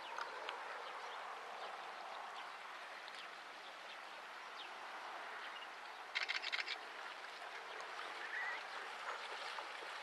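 Shallow river flowing steadily over stones, with faint scattered chirps and a brief rapid clicking rattle about six seconds in.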